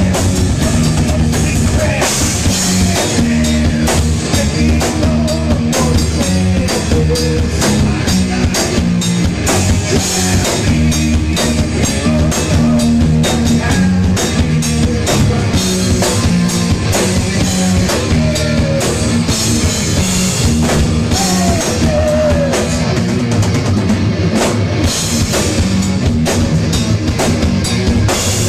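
Heavy metal band playing live and loud: distorted electric guitar, bass guitar and drum kit.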